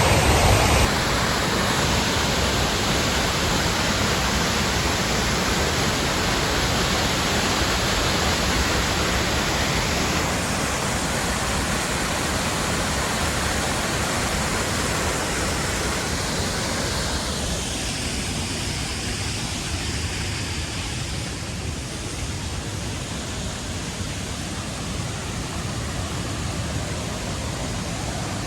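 Waterfall's rushing water: a steady, even rush that softens a little and loses some of its hiss about two-thirds of the way through.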